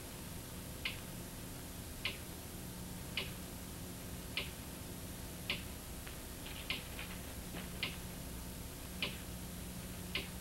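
Clock ticking slowly, a little less than one tick a second, with a few fainter clicks in between about two-thirds of the way through, over a steady low hum and hiss.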